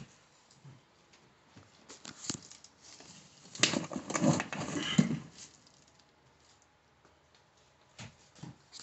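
Handling noise: scattered light knocks and clicks, with a louder stretch of rustling and rubbing for about a second and a half near the middle.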